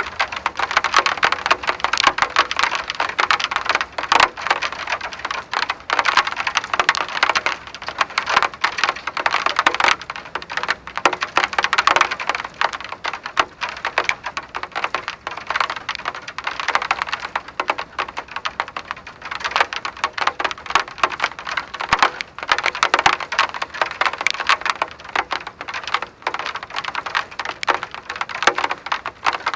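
Rain pattering on a hard surface: a dense, continuous run of small drop clicks that swells and eases every few seconds.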